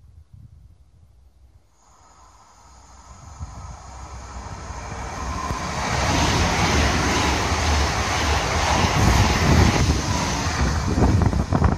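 PKP Intercity electric multiple unit passing through the station. Its rush of wheels on rails swells out of near quiet from about two seconds in and is loud by about six seconds in, with a rapid clatter of wheels over the rails near the end.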